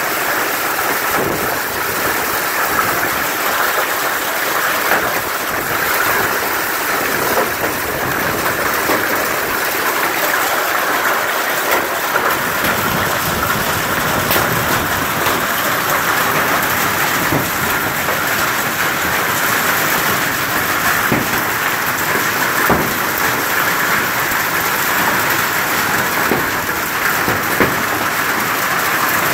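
Heavy hailstorm: tennis-ball-sized hailstones and rain pelting the garden in a dense, steady clatter. Individual stones strike sharply now and then.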